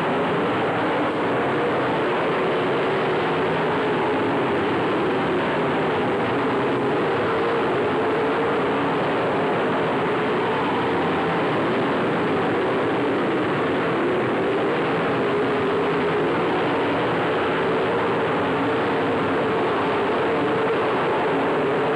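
A pack of dirt late model race cars' V8 engines running together at race speed, one steady dense drone with no let-up.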